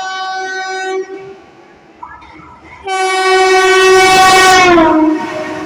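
Indian Railways locomotive horn: a held blast cuts off about a second in, then a louder long blast starts about three seconds in. Its pitch drops as the speeding train passes, and the rushing noise of the train running by follows.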